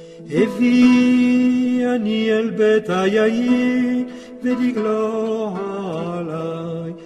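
A solo voice chanting long held notes, with wavering ornamented turns between them.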